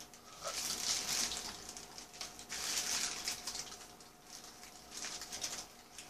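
Paper burger wrapper rustling and crinkling as hands handle a hamburger, in several short spells, over a faint steady hum.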